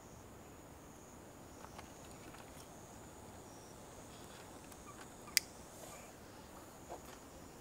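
Quiet outdoor ambience of insects buzzing steadily at a high pitch, with a few faint ticks and one sharp click about five seconds in.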